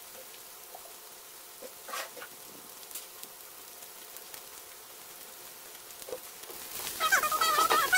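Oil sizzling faintly in a frying pan, with a few small pops. Near the end a loud, wavering, high-pitched cry cuts in for about a second.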